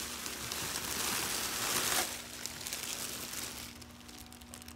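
Bubble wrap and a plastic bag crinkling and rustling as they are pulled off a new steering wheel. The rustling is busiest for the first two seconds, then thins to scattered faint crackles.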